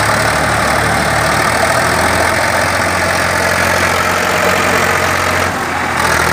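Tractor diesel engines running hard under load as a Sonalika DI 60 and a Farmtrac 60 pull against each other in a tug-of-war, a loud steady engine drone with a brief dip about five and a half seconds in.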